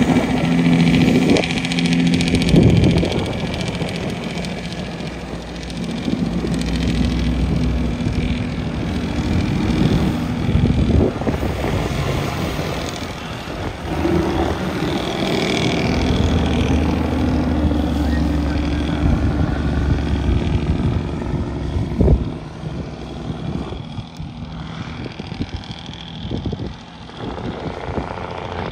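Heavy diesel truck engine running, its steady tone holding for several seconds at a time and fading between stretches, with a few sharp knocks and wind noise on the microphone.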